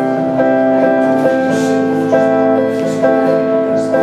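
An instrumental tune of held notes, each note steady until the next, changing about once or twice a second, played on a keyboard or reed-type instrument.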